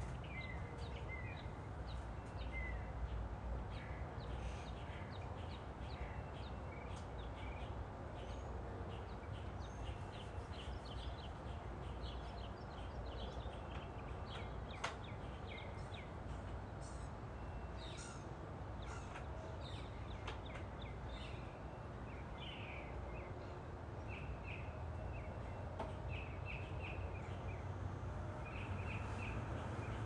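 Several wild birds chirping and calling in short, high notes throughout, over a steady low background rumble, with one sharp click about fifteen seconds in.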